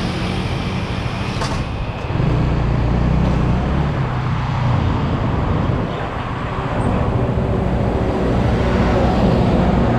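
Honda CBR150R's single-cylinder engine running while riding, under a steady rush of wind and road noise. The engine note dips and picks up again twice, about two and six seconds in.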